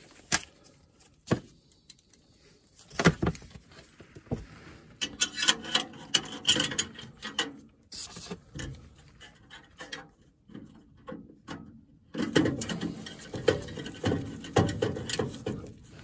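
Hands fitting a flame sensor and its wiring in a gas furnace's burner compartment: scattered clicks and knocks of small metal parts being handled. Denser runs of rattling come about five seconds in and again from about twelve seconds.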